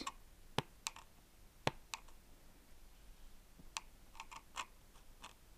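Loudspeaker driver's unglued rubber surround clicking against its frame as a screwdriver tip presses and lifts it: a scatter of faint, sharp clicks at uneven intervals. This is the stray noise the speaker makes because that section of the surround has come loose.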